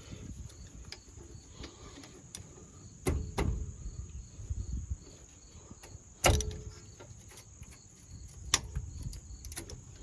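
Sharp metallic knocks and clanks of tools and brake parts being handled, loudest about six seconds in, over crickets chirping steadily.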